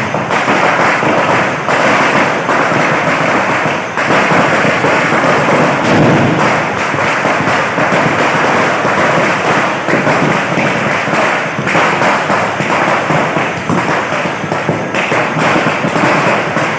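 Firecrackers going off in a dense, continuous crackle of rapid pops and bangs, like a long string of crackers burning, with no break.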